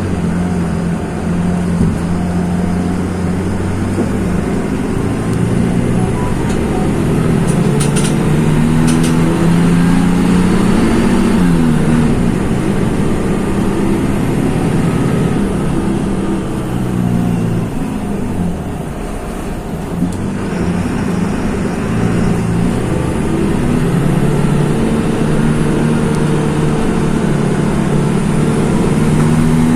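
Mercedes-Benz OF-1724 bus's OM-926 LA six-cylinder turbo diesel running under load, its pitch climbing and dropping back several times as it pulls away and is shifted through the gears of its manual gearbox.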